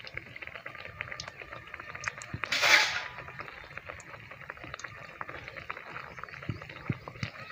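Malpua batter frying in hot oil in an iron kadhai: a steady fine crackling of the oil, with a brief louder hiss for about half a second a little before three seconds in as the spatula works the pancake.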